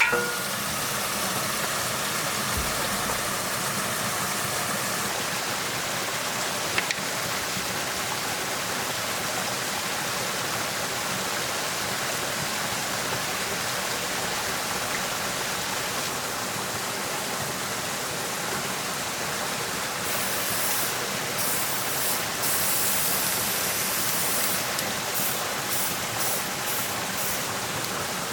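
Steady rushing of flowing water, with a faint hum in the first few seconds and brief hissing surges near the end.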